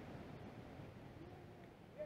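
Near silence: faint outdoor background with no distinct sound.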